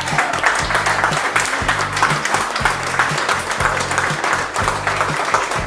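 Crowd applauding throughout, over background music with a steady repeating bass line.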